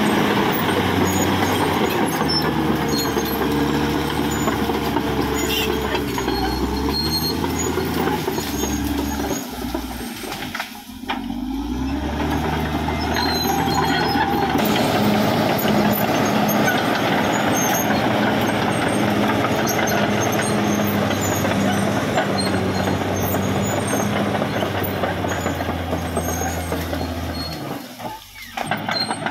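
Caterpillar D6R XL bulldozer's diesel engine working, its pitch shifting as the load and throttle change. The sound drops away briefly twice: about eleven seconds in and near the end.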